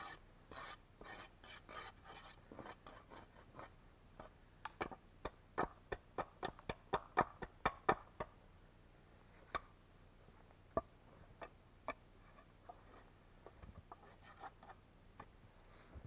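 A run of short scrapes and crunches from a wooden pole being worked by hand, several a second, quickest and loudest in the middle, then a few scattered ones.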